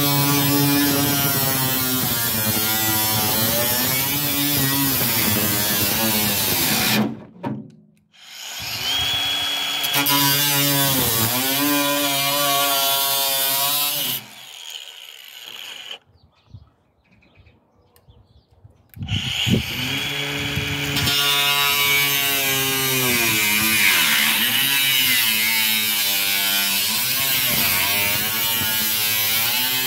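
Flex 24-volt brushless cordless angle grinder with a cut-off wheel cutting through sheet-steel body panel: a loud motor whine that sags in pitch as the wheel bites into the metal. It cuts out twice, about 7 and 14 seconds in, and restarts each time. The owner says the grinder stopped itself when the wheel bound in the cut, which he guesses is a built-in safety feature.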